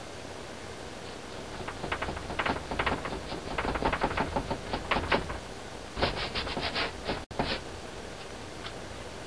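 Acrylic paintbrush dabbing and stroking quickly on a stretched canvas: a run of short taps and scratches that starts about a second and a half in and quickens to about six a second near the end, with a brief cutout just after it.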